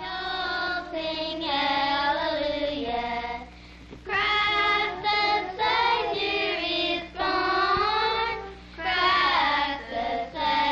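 A group of young children singing a Christmas carol together, in sung phrases broken by two short pauses.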